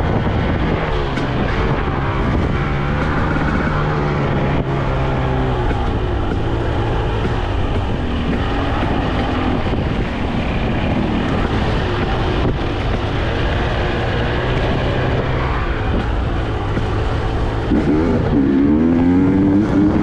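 2022 Husqvarna TE250i fuel-injected 250 cc two-stroke dirt bike engine running under constantly changing throttle on the trail. Its pitch rises and falls throughout and climbs sharply as it revs up near the end.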